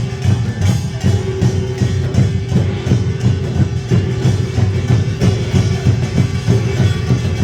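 Korean folk music performance: drums and other percussion beat a steady rhythm of about two strokes a second, with a long held note sounding above it.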